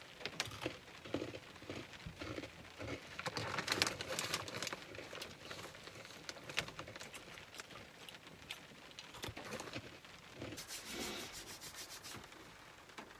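Plastic snack bag crinkling and rustling as honey mustard pretzels are taken out and eaten, with scattered crunches and clicks. A longer rustle comes about ten seconds in.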